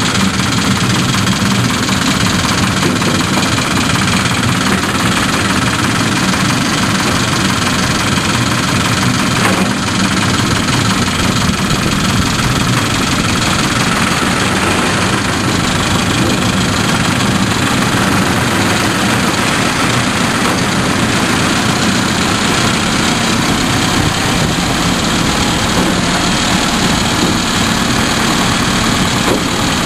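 Miniature railway train running along the track, heard from an open passenger coach: the steam-outline locomotive's diesel engine running steadily under the constant running noise of the train in motion.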